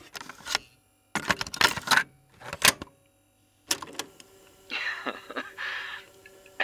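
Cassette player sound effect: several groups of plastic clicks and clunks from the cassette and deck mechanism, then tape hiss as playback starts about three-quarters of the way through.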